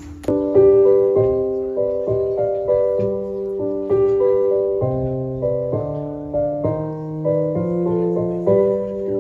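Piano-sounding keyboard playing a slow song intro, starting suddenly just after the beginning, with a new held note or chord about every half second.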